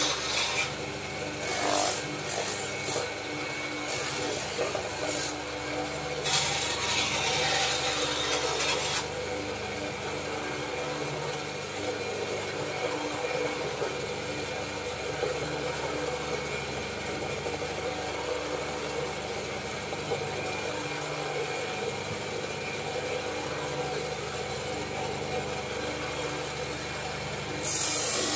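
Spindle sander running steadily while a bow limb is pressed against its sanding drum. Several short rasps come in the first few seconds, a longer stretch of sanding about six seconds in, and a loud rasp begins near the end as the limb tip is worked on the drum.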